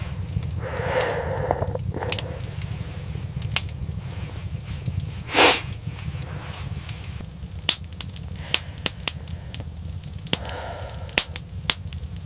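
Wood fire crackling, with irregular sharp pops over a steady low rumble and one louder pop about halfway through.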